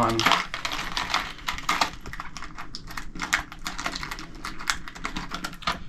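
Quick, irregular light clicks and rattles of small ring terminals being handled and fitted onto stripped wire ends.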